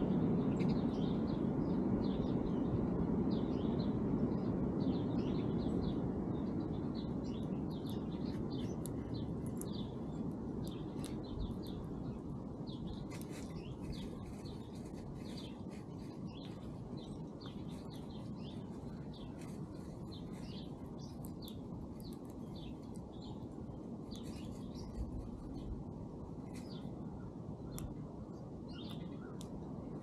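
Small songbirds chirping: many short high calls in quick succession, over a steady low rumble that is louder in the first several seconds and then eases off.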